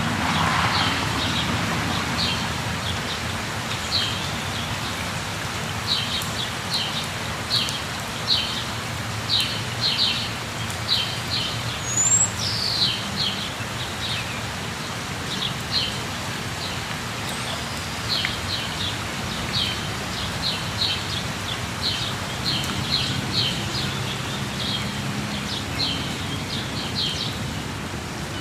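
Waterfall pouring steadily, with birds calling in short, quick chirps again and again and a brief rising whistle about twelve seconds in.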